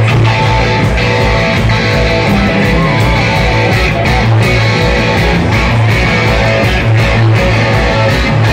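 Rock band playing live and loud: electric guitars, bass and drums with a steady beat.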